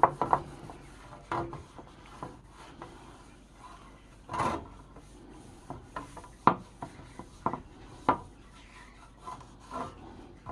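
Irregular hand-worked scraping and rubbing strokes on the antique rip saw. A few strokes are short and sharp, and a longer one comes about four and a half seconds in.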